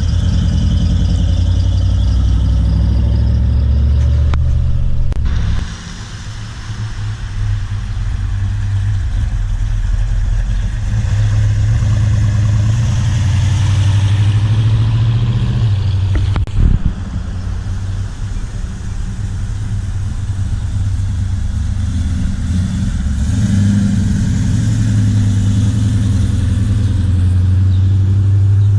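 Car engines rumbling and revving as cars drive past at low speed. The level dips about six seconds in and builds again, and one short sharp bang comes about sixteen seconds in.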